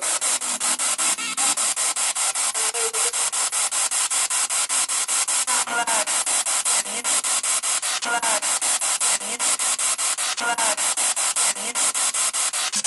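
Spirit box sweeping through radio stations: harsh static chopped into rapid even pulses about five times a second, with brief snatches of voice-like sound every second or so.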